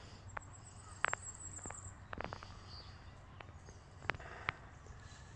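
Footsteps crackling and crunching on dry fallen leaves and twigs, in a few short, sharp clusters.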